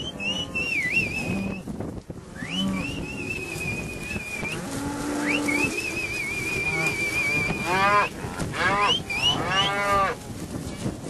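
A herd of cattle mooing and bawling, several calls overlapping, with a loud run of bawls near the end. High, wavering whistles sweep up and hold between the calls.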